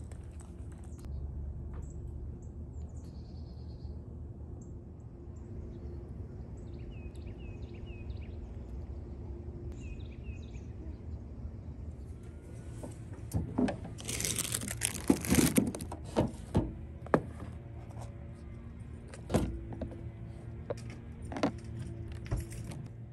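Rustling and light clattering of items being handled, loudest for a couple of seconds past the middle, followed by scattered clicks, over a steady low hum.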